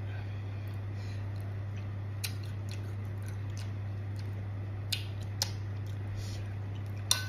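A person chewing food, with a few sharp wet mouth clicks, the loudest near the end, over a steady low hum.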